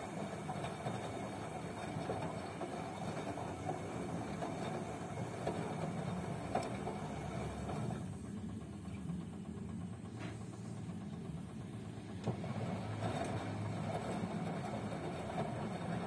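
Zanussi front-loading washing machine in its wash cycle: the motor runs and the drum tumbles laundry through soapy water. The sound drops away for a few seconds partway through, then the drum turns again.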